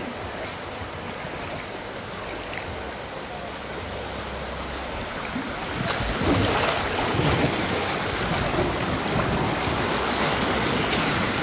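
Rushing river water, a steady hiss that grows louder about six seconds in.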